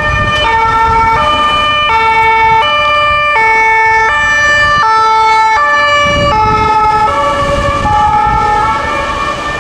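Swiss ambulance two-tone siren, alternating evenly between a low and a high note, each held about three quarters of a second. Near the end the notes drop slightly in pitch and fade as the ambulance passes and drives away, over the rumble of its engine and traffic.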